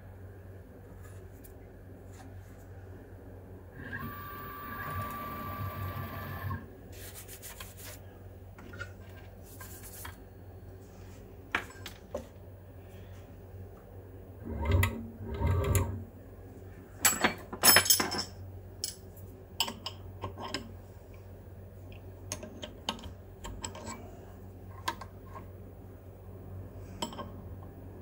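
Small CNC machine working: a steady low hum, a pitched motor whine for a couple of seconds about four seconds in, and scattered clicks and knocks.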